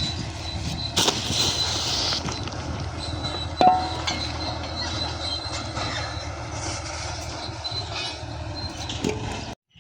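Steady mechanical rumble and hiss with a thin high whine, broken by a sharp knock about a second in and a metallic clang that rings briefly a few seconds later; the sound cuts off abruptly near the end.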